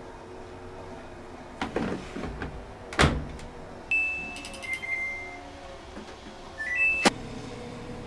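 Dispenser drawer of a front-loading washing machine slid shut with a sharp knock about three seconds in, then the machine's control panel beeping as the cycle is set: a held beep, a lower beep, and near the end a short rising chime ending in a click.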